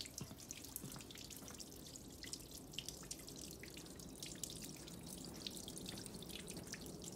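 Faint water dripping into the stone basin of a shrine purification fountain: many small, irregularly spaced drops over a low, steady water sound.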